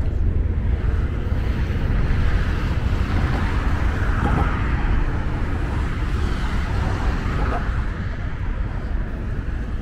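Outdoor city ambience: a steady low rumble of traffic with wind buffeting the microphone.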